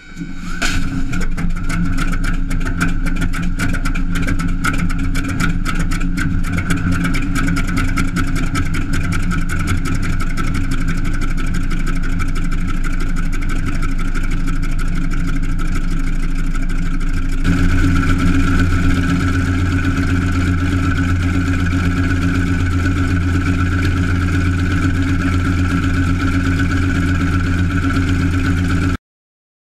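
Wright R-1820 nine-cylinder radial engine of a 1945 FM-2 Wildcat fired by a shotgun-cartridge (Coffman) starter: a sharp bang at the start, then the engine catches and runs with irregular popping. About 17 seconds in it settles into a steadier, slightly louder run, and the sound cuts off suddenly near the end.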